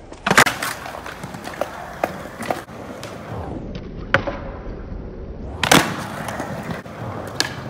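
Skateboard wheels rolling on concrete, with hard clacks of the board striking the concrete: a cluster of impacts about half a second in, a sharp one around four seconds, the loudest near six seconds and a lighter one near the end.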